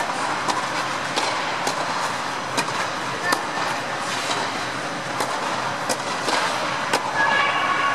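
Tennis balls struck by racket and bouncing on an indoor clay court, sharp knocks about once a second echoing in a tennis air dome over a steady rushing background. Voices come in near the end.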